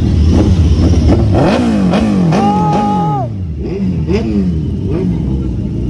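Motorcycle engine revved in quick repeated blips, its pitch rising and falling several times over a steady engine rumble, with a held two-note tone about halfway through.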